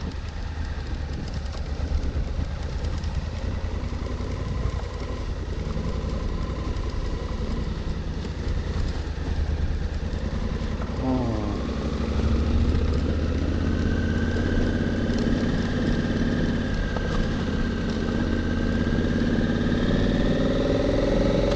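Honda Africa Twin's 998 cc parallel-twin engine running while the motorcycle is ridden. About halfway through the revs dip briefly, then climb steadily to the end.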